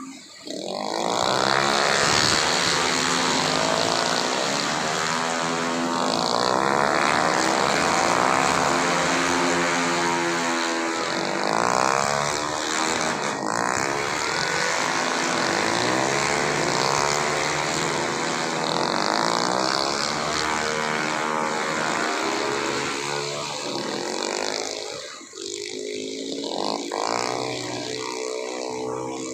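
Tuned 130 cc automatic scooter engines racing at high revs. Their pitch rises and falls again and again as the machines pass, and they briefly go quieter near the end before more come through.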